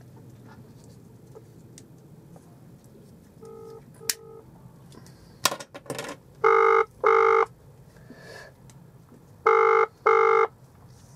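UK telephone ringing tone heard through a phone's loudspeaker: a double 'brr-brr' beep, twice, about three seconds apart, starting about six and a half seconds in. It comes after two short beeps and a few clicks as the call connects.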